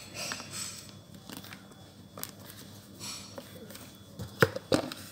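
Plastic parts of a hands-free breast pump being handled and fitted together: light rubbing and small ticks, then a few sharp plastic clicks near the end as the motor unit is pressed onto the collection cup.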